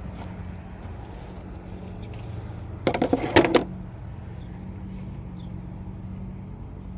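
Steady low mechanical hum, with a brief clatter of several sharp clicks about three seconds in.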